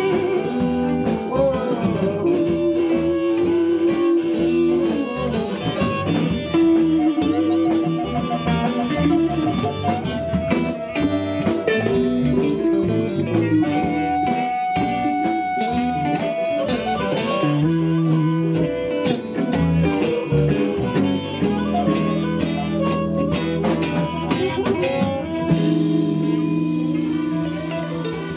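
A live blues band playing an instrumental passage: electric guitar lead with held, bending notes over bass guitar and a drum kit.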